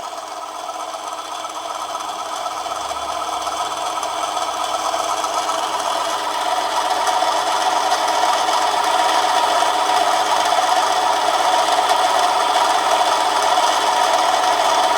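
Manson lathe and its drive motor running under a heavy cut in a brass bar: a steady machine hum with a whine, growing gradually louder over the first several seconds and then holding. The motor's pitch is changed by the load, and it is struggling at that depth of cut.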